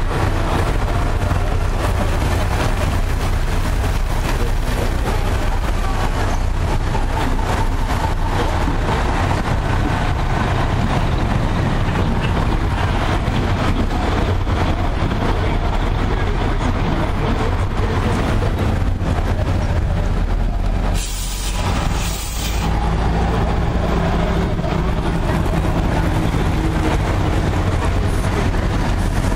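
Coach buses and police vans driving slowly past in a convoy: diesel engines running and tyres hissing on wet tarmac.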